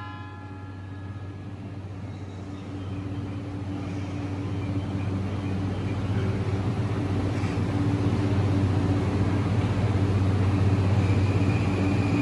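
E235 series 1000 electric train pulling out of the station, its running noise and motor tones growing steadily louder as it gathers speed.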